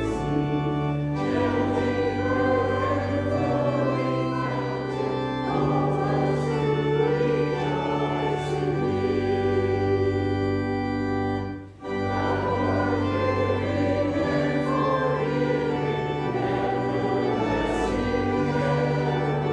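Church organ accompanying voices singing a hymn, with long held bass notes that change every second or two. The music drops out for a split second about twelve seconds in, then carries on.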